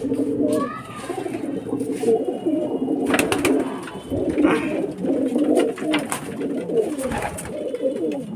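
A flock of domestic pigeons cooing together in a loft, many overlapping calls forming a dense, unbroken chorus, with a few brief sharp knocks among them.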